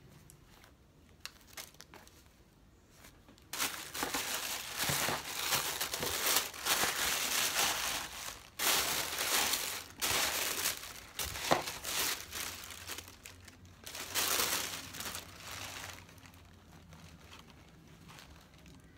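Stuffing paper crinkling and crumpling in irregular bursts as it is pulled out of new sneakers, starting a few seconds in and dying down near the end.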